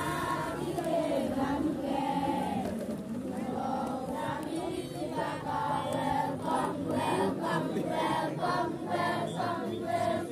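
A crowd of children and adults singing together in chorus, with a regular beat joining about halfway through.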